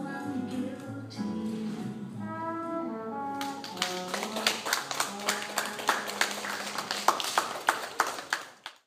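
Recorded music with a melody plays; about three and a half seconds in, a small audience breaks into clapping over the quieter music, and everything cuts off shortly before the end.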